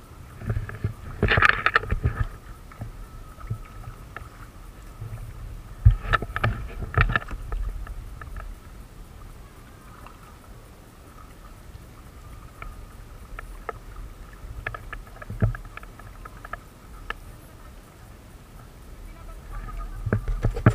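Kayak paddles dipping and splashing in calm water beside a plastic sit-on-top kayak, with scattered small clicks and knocks over a low steady rumble.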